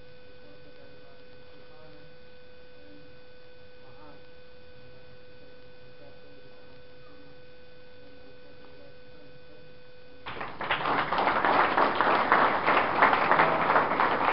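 Quiet room murmur with a faint steady electronic tone. About ten seconds in, a crowd starts applauding, loud and continuing.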